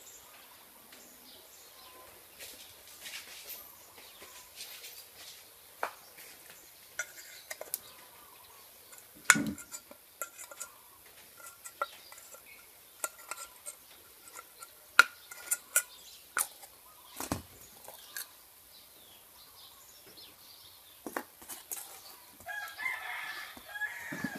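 Sharp clicks and knocks of small metal pieces being handled, a tin can, a brass ring and a thin rod tapping together, loudest about nine and fifteen seconds in. A chicken clucks in the background, and a rooster crows near the end.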